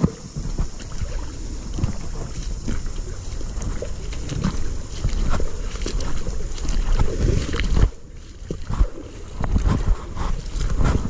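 Rumbling handling and wind noise on a body-worn camera, with irregular knocks and rustles as the angler moves along the bank with a bent rod, over the steady rush of a shallow rocky stream. There is a short lull about eight seconds in.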